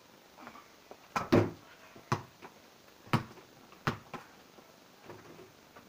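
An inflated football thrown at a basketball hoop: a quick double knock as it strikes the hoop, the loudest sound, then single knocks about a second apart as it bounces on paving slabs.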